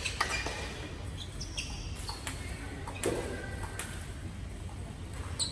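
Table tennis balls clicking: a few quick ticks of ball on bat and table as a rally ends near the start, then scattered single clicks of balls bouncing, echoing in a large hall.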